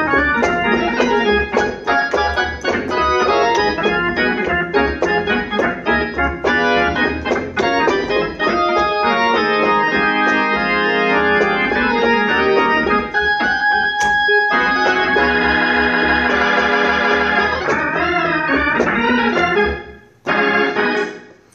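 Hammond B3 organ played through its Leslie 122 rotating speaker, test-played after repairs: full sustained chords with quick keyed runs and bass underneath. The held chords take on a wavering warble near the end. It stops about twenty seconds in after a last short chord.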